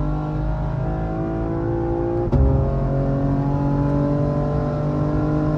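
BMW M3 G80's twin-turbo straight-six (S58), tuned with downpipes and software, pulling at full throttle past 200 km/h, heard from inside the cabin. Engine pitch climbs steadily, then drops at an upshift with a sharp crack about two seconds in and climbs again, with another upshift near the end.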